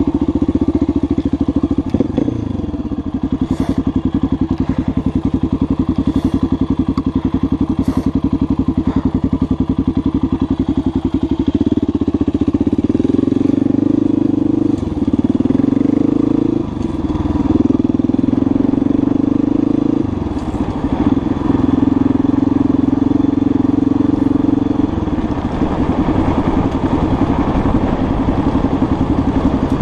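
Motorcycle engine running under way, its note changing in steps several times with brief dips in between, as the rider works through the gears.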